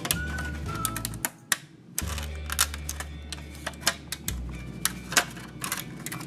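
Scissors snipping through the thin plastic of a candy-mold tray: an irregular series of sharp snips and clicks, with a brief pause about a second and a half in.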